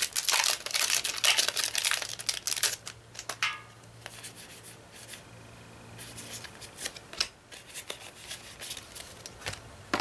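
A foil Yu-Gi-Oh! booster pack wrapper crinkling and tearing open for the first three seconds or so, then trading cards sliding and flicking against each other as they are leafed through by hand.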